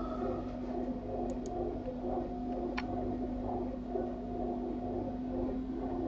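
Steady low hum, with a few faint computer mouse clicks and one sharper click about three seconds in.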